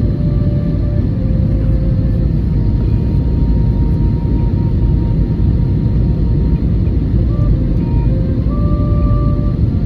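Steady low rumble of an Airbus A321-211's CFM56 engines and airflow, heard inside the passenger cabin.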